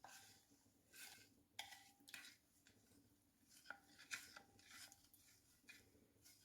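Faint kitchen handling sounds: irregular light scrapes and clicks of utensils against dishes, a few with a brief ring.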